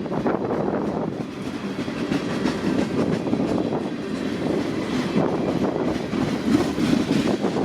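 Freight train rolling past, its railcar wheels clattering steadily over the rails.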